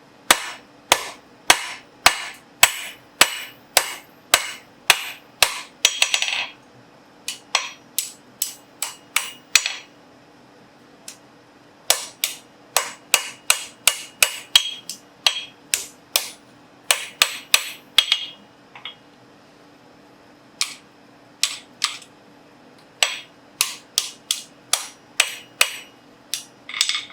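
Hand hammer striking hot steel on an anvil, about two sharp ringing blows a second in four runs with short pauses between, as the blacksmith reworks a forged caliper piece that came out crooked.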